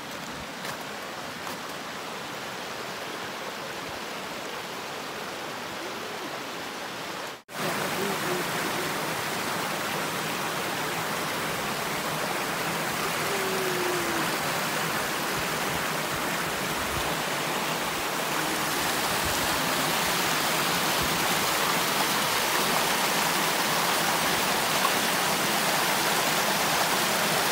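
A small rocky forest creek and its little cascade make a steady rushing and splashing of water. The sound breaks off for an instant about seven seconds in, returns louder, and swells again past the middle.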